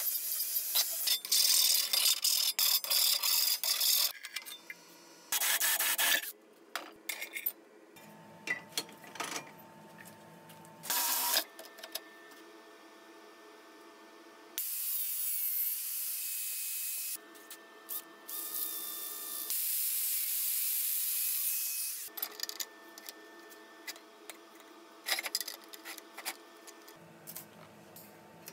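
Metalworking on steel tubing: bursts of abrasive rubbing and scraping on the metal, loudest in the first few seconds, with two steady hissing stretches of a few seconds each in the middle, over a faint steady hum.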